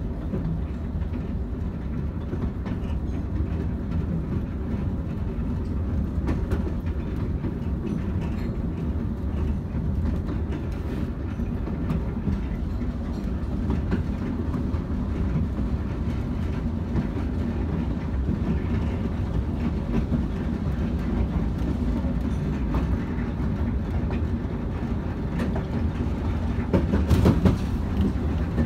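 A 15-inch-gauge passenger train running along the line, heard from aboard a carriage: a steady low rumble of wheels on rail with faint clicks over the track. There is a brief louder rush near the end.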